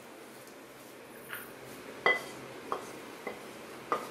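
Kitchen utensils and a metal kadai being handled on the stove: about five light knocks and clinks, the loudest about two seconds in, with a brief metallic ring.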